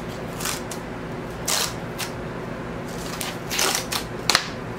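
Cardboard vinyl record mailer being torn open along its perforated tear strip, in a series of short rips, with a longer tear a little past three seconds in and a sharp snap near the end.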